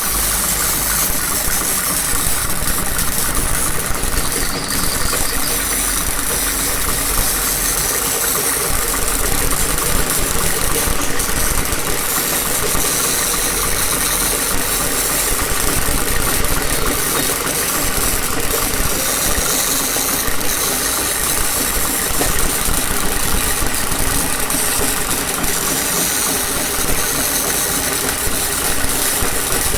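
Machinery running steadily: an engine-like drone with a constant hiss over it, starting suddenly and holding level.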